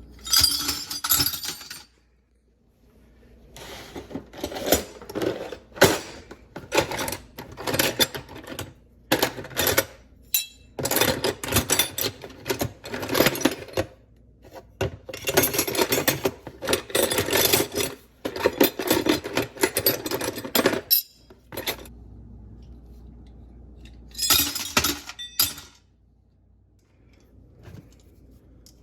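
Small pieces of scrap copper clinking and rattling as they are handled, in repeated bursts with short pauses between them.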